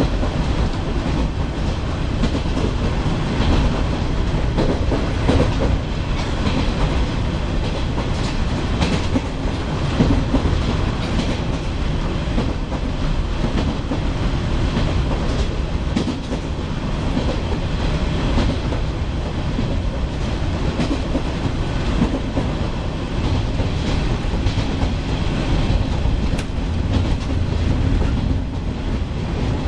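Onboard running sound of a JR Shikoku KiHa 40 series diesel railcar under way: a steady low rumble of the diesel engine and wheels on the rails, heard inside the carriage, with occasional clicks as the wheels pass over rail joints.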